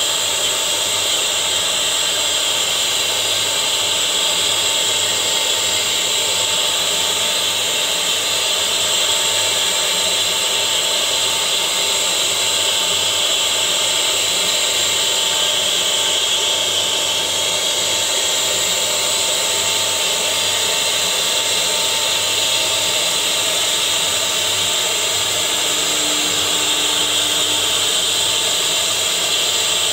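CNC wood router spindle running with its bit cutting grooves into a wooden board: a steady, high-pitched whine mixed with cutting noise.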